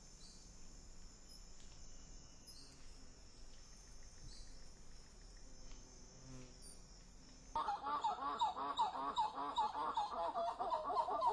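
Titi monkey calling: a rapid run of loud, repeated calls that starts abruptly about two-thirds of the way in, after a steady faint high hiss.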